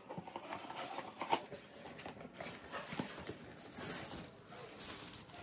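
Cardboard packaging being handled and opened by hand: irregular light taps and scrapes. From a little past halfway, a plastic bag crinkles as the boxed air filter is pulled out in its wrap.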